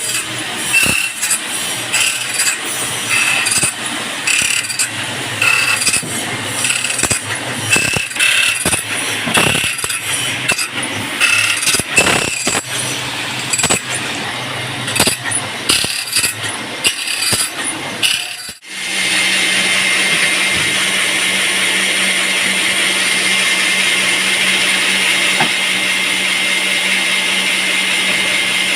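Band sawmill machinery: for about eighteen seconds, irregular clanks and knocks over a running machine hum, then an abrupt switch to a loud, steady, even run of the saw that continues unchanged.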